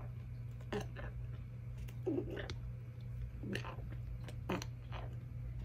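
Golden retriever puppy with megaesophagus regurgitating: a string of short throaty gulping and gagging noises about a second apart.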